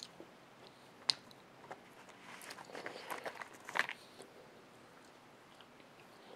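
Faint close-up eating sounds: a person biting and chewing bacon-topped fries. A sharp click comes about a second in, then a cluster of small crunchy clicks a little past the middle.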